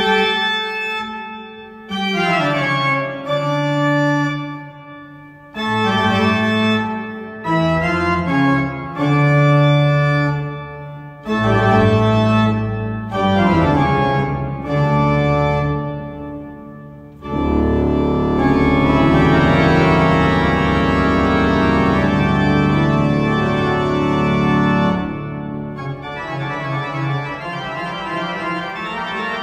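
Church pipe organ with mechanical (tracker) action being played in chords. Short phrases are broken by brief pauses, then a long, loud full chord comes in about 17 seconds in. A softer passage follows near the end.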